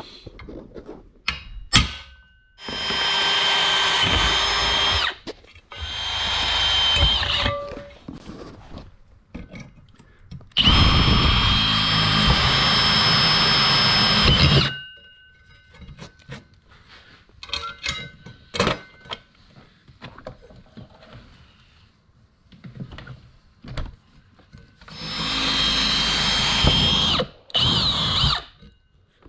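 Electric drill boring holes into the plastic top of a Solo Skiff's centre hatch through the swivel-seat mount base, in several runs of a steady whine, the longest about four seconds. Light clicks and knocks of handling fall between the runs.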